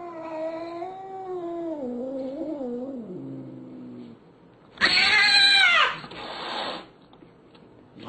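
Two domestic cats caterwauling in a standoff: one long, low, wavering yowl for about four seconds, then a sudden loud screech about five seconds in.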